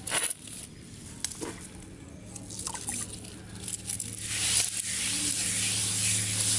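A stiff hand brush scrubbing wet pink paste across the packed ends of a bundle of firecracker tubes. There are a few short wet scrapes at first, then louder, continuous brushing from about four seconds in.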